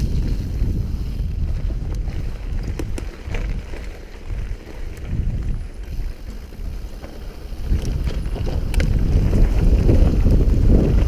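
Wind buffeting the microphone over the rumble of a mountain bike's tyres on a dirt trail at speed, with a few sharp rattling clicks from the bike. The rumble eases in the middle and grows louder again about eight seconds in.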